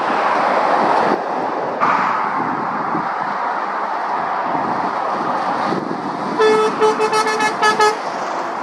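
Lorries and traffic passing on a main road with a steady rush of tyre and engine noise. Near the end a vehicle horn sounds one longer blast, then a rapid run of short toots.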